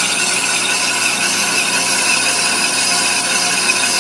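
Ammco brake lathe spinning a cast-iron brake drum while its cutting bit shaves the inner braking surface: a steady scraping hiss of the cut with a high, even tone running through it, partway across the drum.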